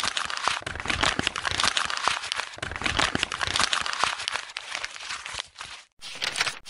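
Dense, irregular crackling and crunching, many small clicks in quick succession, with a brief break shortly before the end.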